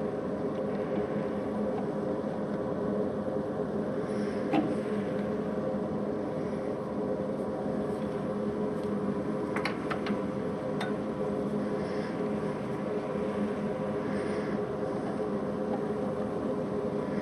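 Atlas metal lathe running steadily with a constant hum, with a few light clicks about four seconds in and again near ten to eleven seconds.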